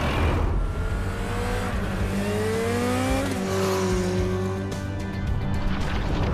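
Motorcycle engine accelerating, its pitch climbing for about three seconds, then dropping and holding steady, over background music.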